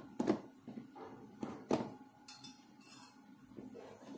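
Kitchen containers and utensils being handled, knocking and clinking, with two sharp knocks about a second and a half apart and a few lighter clicks, over a faint steady hum.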